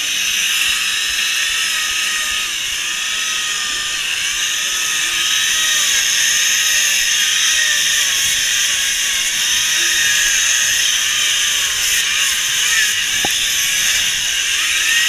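Chainsaws cutting into blocks of ice, running steadily with their pitch rising and falling as they bite and ease off, over a high hiss.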